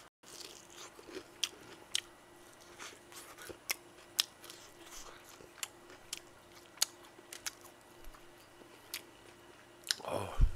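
Fried chicken being bitten and chewed close to a microphone: irregular crisp crunches of the fried coating, a few sharper than the rest.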